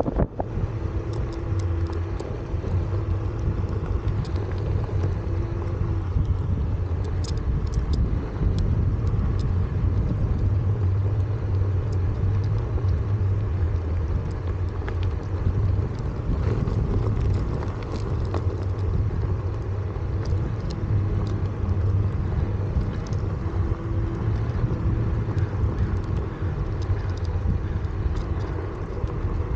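Onewheel Pint electric board rolling along asphalt: a steady low rumble from its hub motor and Craft & Ride Burris wheel on the pavement, with a faint higher hum that comes and goes.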